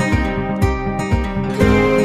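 Background music: acoustic guitar with a steady beat.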